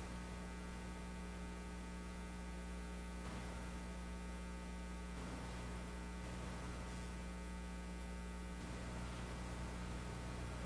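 Steady electrical mains hum with its overtones over a faint hiss, on an idle audio feed that is carrying no programme sound yet.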